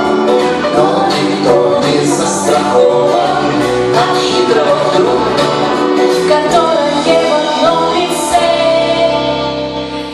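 Jazz song performance: singing over instrumental accompaniment, with no clear words.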